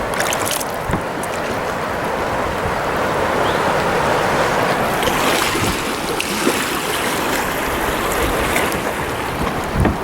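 River water rushing steadily, with a few brief dull knocks.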